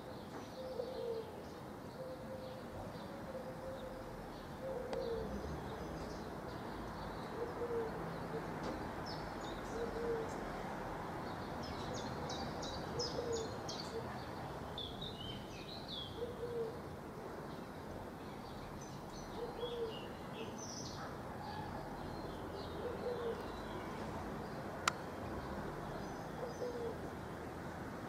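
A dove cooing, one short low note about every three seconds, while small birds chirp and twitter higher up over steady outdoor background noise. A single sharp click comes near the end.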